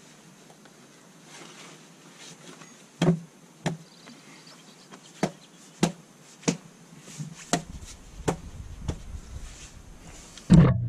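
Irregular sharp knocks, about ten over several seconds, as a rubber car tyre is pushed and worked into place on top of a log chopping block. A loud bump near the end as the camera is grabbed and lifted.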